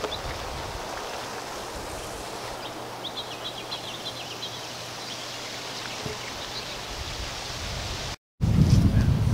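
Steady outdoor hiss of open-air ambience with a few faint high chirps about three seconds in. After a cut near the end, a loud low rumble of wind on the microphone.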